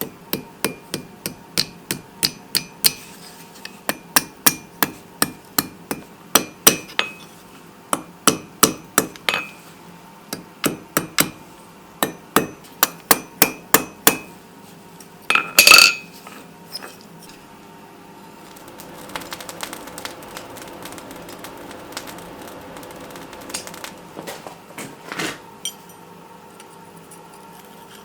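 Rounding hammer striking small hot steel stock on an anvil in quick, light ringing blows, about two a second, with one loud clang midway. Later the blows give way to several seconds of scraping.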